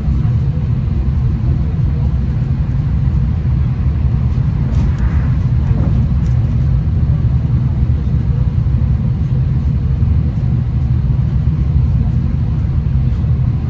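V/Line train running along the line: a loud, steady low rumble of the carriage and wheels on the track, with a brief higher hiss about five seconds in.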